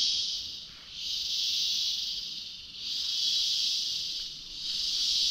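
Cicadas buzzing: a loud, high-pitched drone that swells and eases in waves about every two seconds.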